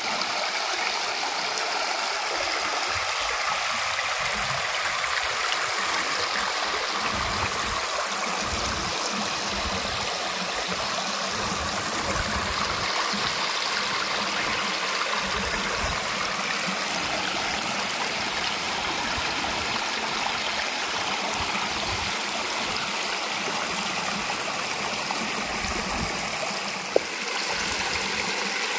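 Steady rush of flowing stream water, with one brief sharp click near the end.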